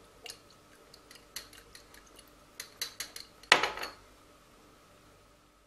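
A glass thermometer clinking against the inside of a glass Erlenmeyer flask as a zinc powder, iodine and water mixture is stirred: a run of irregular sharp clinks, the loudest about three and a half seconds in, stopping after about four seconds.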